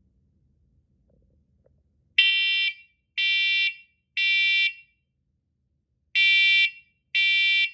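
First Alert SMCO100V-AC combination smoke and carbon monoxide alarm in test mode, sounding its smoke alarm pattern. It gives two groups of three loud, shrill half-second beeps, about a second apart, starting about two seconds in.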